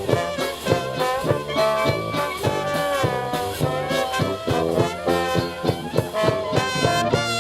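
Trad jazz band playing a swing number live, with melody lines over a steady beat.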